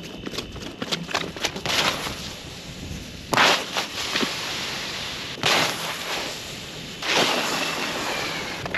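Clear lake ice cracking: a scatter of small ticks, then three sharp, loud reports about two seconds apart, each ringing on for about a second.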